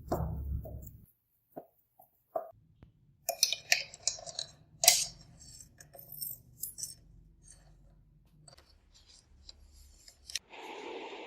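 Scattered sharp clicks and clinks with some rubbing, the busiest in the middle, then a steady hiss starting near the end.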